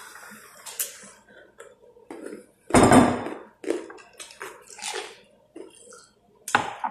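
Glasses and tableware clinking and knocking, with ice cubes rattling in a small glass as it is tipped up to drink. One louder, short noisy sound comes about three seconds in.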